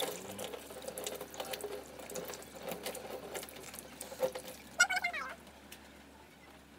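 Water splashing as a face is rinsed by hand, a run of small irregular splashes and drips, with a short vocal sound about five seconds in before it goes quiet.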